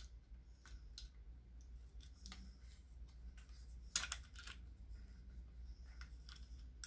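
Onn Focus tripod head being handled: scattered faint clicks and small knocks as its pan handle and mount are moved, the sharpest click about four seconds in.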